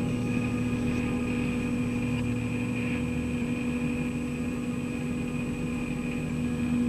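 Steady low droning hum with several constant held tones over a rumble, like machinery running, unchanged throughout.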